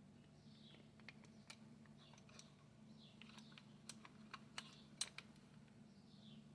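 Faint, scattered clicks and taps of small parts being handled and fitted as a small electric motor is put back together, the sharpest tap about five seconds in. Faint bird chirps and a low steady hum lie underneath.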